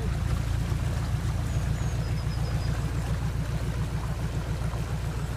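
Narrowboat's diesel engine running with a steady, fast low chug.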